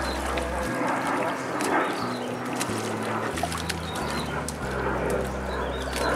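A hooked tilapia thrashing and splashing at the water's surface as it is played on a long fixed-line pole.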